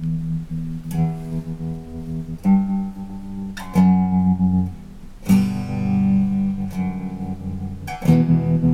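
Electric guitar chords strummed through a Montreal Assembly Rand() random-tremolo pedal, a new chord struck about every second and a half. The volume flickers and chops unevenly as the pedal modulates it at random, giving a glitchy, wavering sound.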